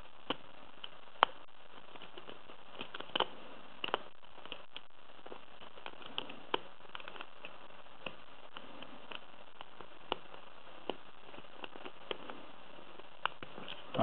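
Lock pick and tension wrench working the pins of a brass pin-tumbler padlock: irregular small clicks and ticks over a faint hiss.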